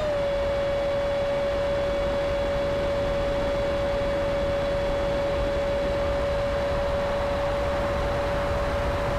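RC plane's motor and propeller in flight, a steady whine that dips slightly in pitch at the start and then holds even, over a constant rushing of air.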